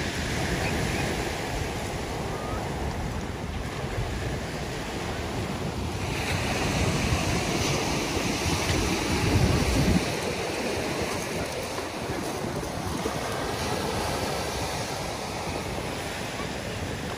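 Small waves breaking and washing up a pebble beach in a steady surf wash. Wind rumbles on the microphone until a bit past halfway, then drops off suddenly.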